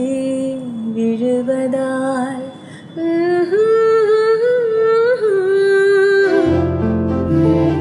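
A slow film song: a solo voice sings a melody of long held notes that glide and waver, over soft accompaniment. Deep sustained notes come in about six and a half seconds in.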